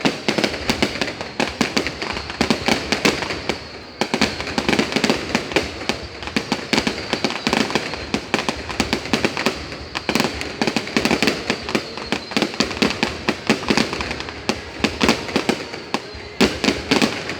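Aerial fireworks display going off as a dense, continuous run of rapid bangs and crackles, with a brief lull about four seconds in.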